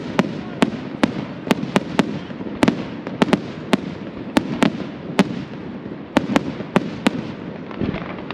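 Aerial fireworks: sharp bangs at irregular intervals, two or three a second, over a continuous crackling hiss from a sky full of glittering white stars. The bangs ease off briefly near the end.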